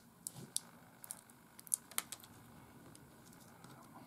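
Light, irregular clicks and taps of a small screwdriver pushing wires into place inside an opened compact camcorder's case. The clicks come thickest in the first two seconds and thin out after.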